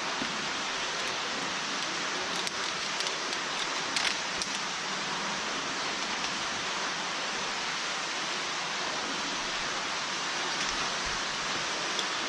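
Steady rushing roar of a large underground waterfall, with a few faint light clicks about three to four seconds in.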